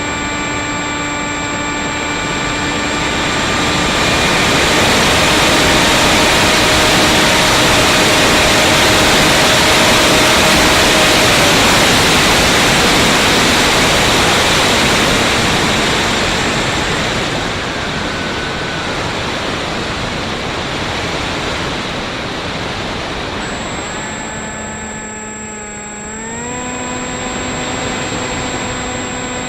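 2216 2000 kV brushless motor spinning a 6x4.5 propeller on a Bixler foam plane in flight, a steady whine. Rushing wind noise drowns it out for the middle stretch, and about three seconds before the end the whine climbs in pitch and holds higher.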